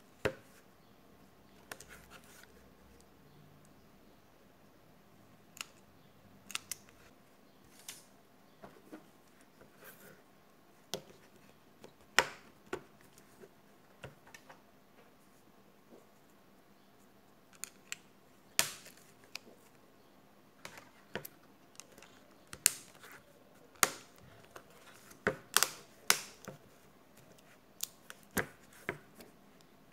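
Sharp, irregular clicks and snaps from the plastic body of a Samsung Galaxy J3 (2016) as it is handled and pressed together along its edges, its clips snapping into place.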